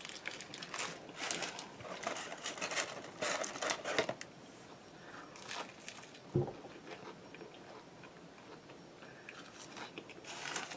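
Close-up eating sounds: biting and chewing a double cheeseburger, then an onion ring, with a run of crunchy chewing noises in the first four seconds or so and quieter chewing after. A single low thump comes about six seconds in.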